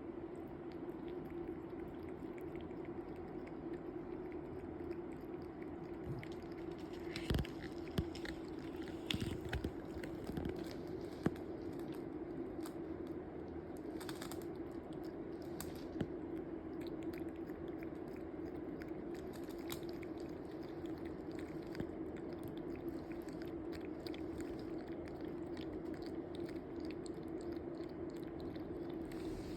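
A cat lapping water with its tongue: a run of small, quick wet clicks that come and go, over a steady low hum.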